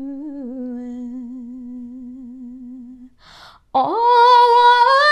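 A woman singing a Tatar folk song without accompaniment holds a low note with vibrato, fading away about three seconds in. After a quick breath she comes in loudly on a high note about an octave above.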